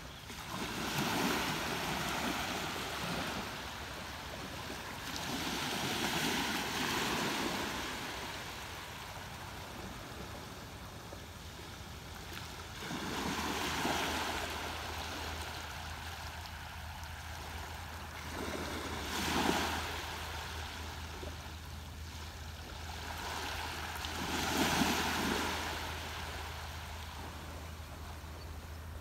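Ocean waves breaking on a shore: five swells of surf about five seconds apart, with a steady wash between them. The two near the end are the sharpest.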